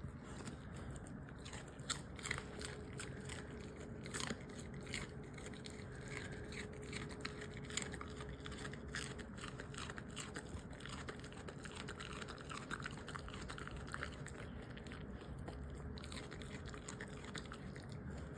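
A border collie chewing raw cabbage: irregular crisp, wet crunches and bites all the way through. A faint steady hum sits underneath for several seconds in the first half.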